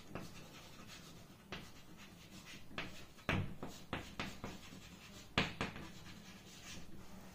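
Handwriting: a series of short, irregular scratching strokes of a writing tool on a surface, faint.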